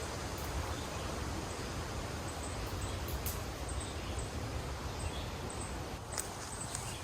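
Steady rain falling, an even hiss with a few faint light ticks near the end.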